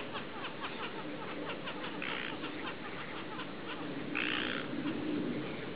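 Ducks quacking: a quick run of short calls, then two louder, harsher quacks about two and four seconds in, over a steady hiss.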